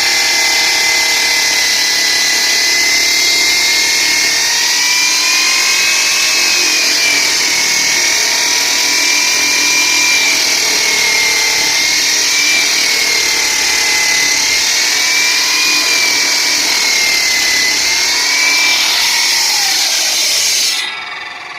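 Power cutter's blade cutting through a concrete slab: a loud high whine with heavy hiss that wavers up and down in pitch as the blade bites. It cuts off sharply about a second before the end, and the falling whine that follows is the blade winding down.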